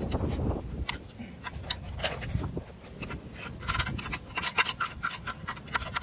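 Fingers scraping and picking caked mud and dirt off the steel underside of a skidsteer around the oil drain plug: a string of short scratching and scraping sounds, thickest in the second half, with a low rustle of movement at the start.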